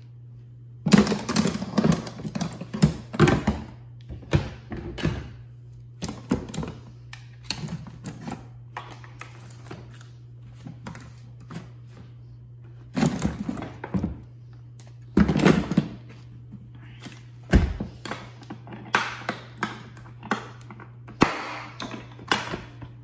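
Hand tools, gloves and cordless drills being packed back into a plastic Milwaukee Packout toolbox: irregular clunks, clatter and rustling of metal and plastic against the box's plastic tray. Near the end the lid is shut and latched with a couple of heavier knocks.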